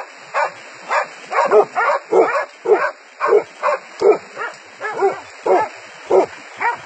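Dogs barking in a fast, steady run of short barks, about two to three a second.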